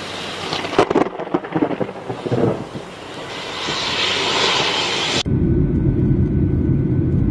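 Thunder from close lightning: a burst of sharp crackling cracks, then, after an abrupt change about five seconds in, a heavy low rumble.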